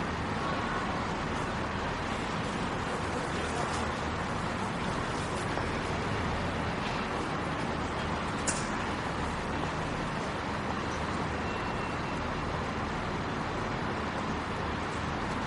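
Metro station ambience: a steady wash of crowd murmur and low rumble in a large echoing hall, with scattered faint clicks and one sharper click about eight seconds in.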